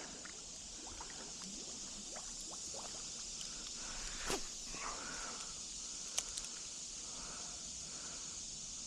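Creek water running steadily, with a couple of faint clicks.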